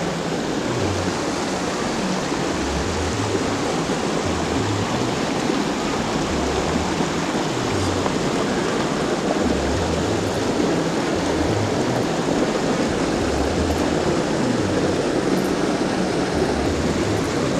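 Steady rush of a small mountain creek pouring over rocks in a short cascade into a pool.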